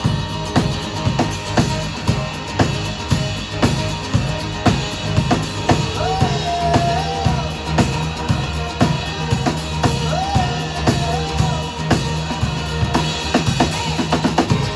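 Live rock band playing an instrumental passage: a steady drum-kit beat of kick and snare over a pulsing bass line, with a wavering melodic line in the middle.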